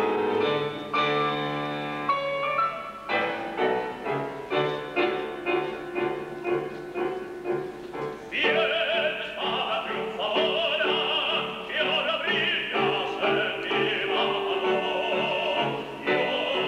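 Piano playing a zarzuela aria's introduction in rhythmic repeated chords. About eight seconds in, an operatic voice enters over the piano, singing with strong vibrato.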